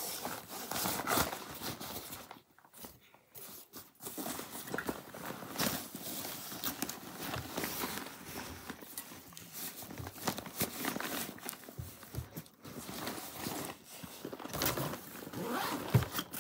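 A fabric backpack being repacked by hand: rustling of the cloth, irregular knocks and clicks of items such as a plastic water bottle going into it, and zippers being pulled on its pockets.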